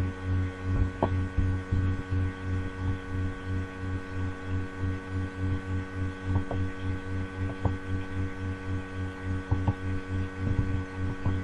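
Steady electrical hum made of several even tones, pulsing evenly, with a few faint clicks.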